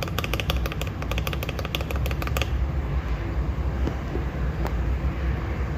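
Mechanical keyboard with Akko ASA-profile keycaps being typed on in a fast run of key presses for about two and a half seconds, then two single presses over a steady low hum.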